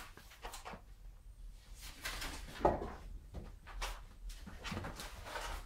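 Faint scuffling and rustling from Birman kittens scampering and playing on a quilt over a tiled floor, with a few light knocks, the sharpest about halfway through.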